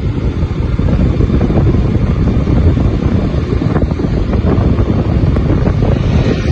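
Wind buffeting the microphone on a moving motorcycle: a loud, continuous low rumble.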